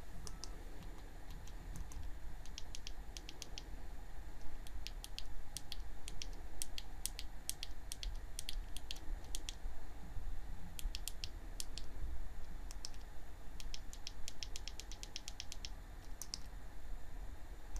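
Irregular runs of small, sharp button clicks, several a second, as the settings of a video camera's on-screen exposure and gain (AGC) menu are stepped through.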